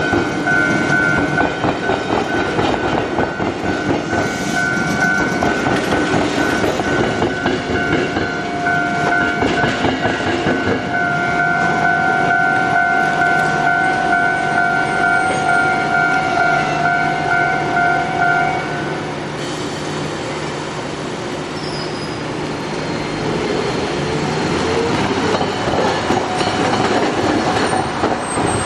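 Iyo Railway streetcars rolling through a flat rail crossing, wheels clacking over the crossing's rail joints, with a steady high tone over the rumble that stops about two-thirds of the way through. After that, quieter road traffic.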